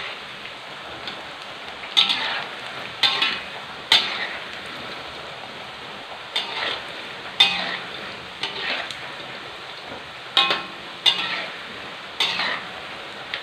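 Tempeh frying in hot oil in a wok, with a steady sizzle. A spatula scrapes and knocks against the wok about once a second, roughly nine strokes, as the pieces are stirred and turned.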